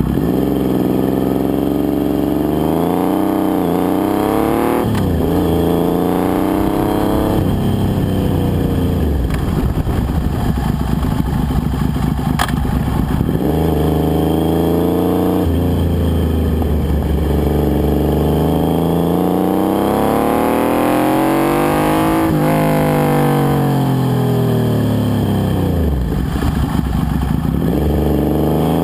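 1998 Triumph Thunderbird Sport's 885 cc inline three-cylinder engine running through a D&D 3-into-3 aftermarket exhaust, heard right at the muffler. It pulls up through the revs and rolls off again and again, the pitch climbing steadily then dropping sharply several times, with a long climb in the second half and a steep fall near the end before it picks up again.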